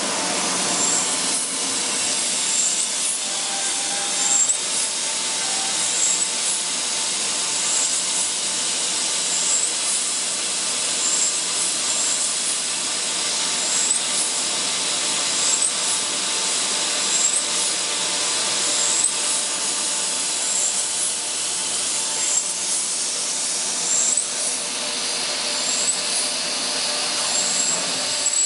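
Steady industrial machinery noise in a large machine shop. It is an even hum with a few faint steady tones and a faint high tick repeating about every second and a half.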